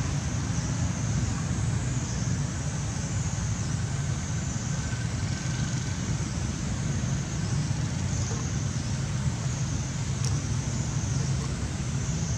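Steady outdoor background noise: a low rumble with a high hiss above it.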